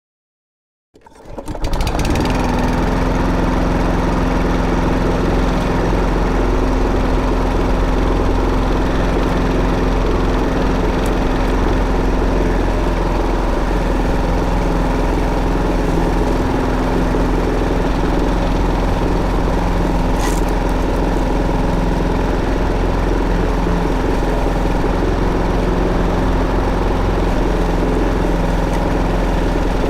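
Petrol lawn mower engine running steadily while mowing grass, fading in about a second in and then holding one even pitch.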